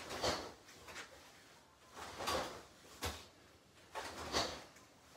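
Karate uniforms swishing and snapping with each snap kick, one swish about every two seconds, with a few short knocks between.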